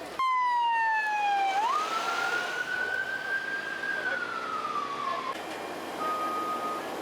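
Emergency vehicle siren wailing, its pitch sliding down, jumping up, then gliding slowly up and down before it cuts off abruptly. A heavy vehicle's reversing beeper then sounds steady, evenly spaced beeps.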